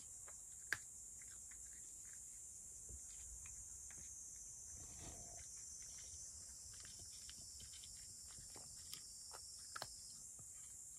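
A cat eating dry kibble: faint, scattered crunches and clicks of chewing, one louder crunch about a second in and a few in quick succession near the end.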